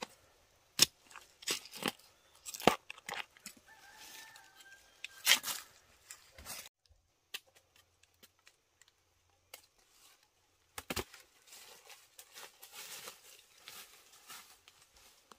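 A series of sharp chopping strikes: five in the first six seconds and one more about eleven seconds in. Each is followed by crackling and tearing of plant material.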